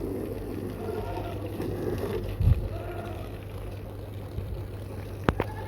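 Electric water pump motor running with a steady hum while water from its pipe pours and splashes onto a motorbike being washed. A single sharp click near the end.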